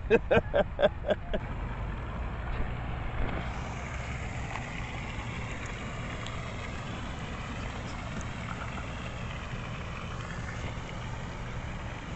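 A person laughing in a quick run of ha-ha bursts for the first second and a half. Then a steady low rumble of background noise with no voices.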